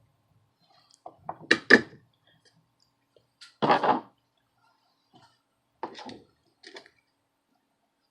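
Handling noise from small-electronics bench work: a few short knocks and scrapes. The loudest are two close together about a second and a half in and a slightly longer scrape near four seconds, followed by smaller clicks around six and seven seconds.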